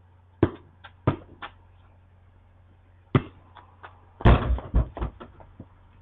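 A basketball bouncing and being shot at a portable hoop: single thuds of the ball in the first second and a half and again around three seconds in, then the loudest close run of thuds and knocks a little after four seconds as a missed shot comes down off the hoop.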